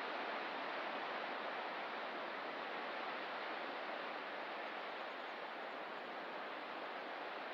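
Steady wash of ocean surf, easing a little midway and building again near the end.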